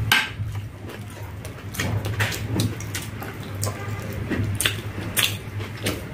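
Eating by hand: irregular small clicks and taps of fingers picking chicken pakora off a ceramic plate and of chewing, over a steady low hum.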